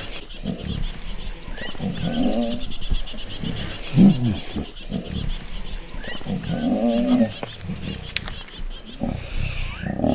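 A Cape buffalo bull bellowing in distress about four times, a couple of seconds apart, while lions growl as the pride grips and pulls at it.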